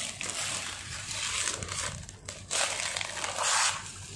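Clear plastic wrapping crinkling and rustling as it is pulled off a home theatre unit, in uneven bursts that are loudest about two and a half to three and a half seconds in.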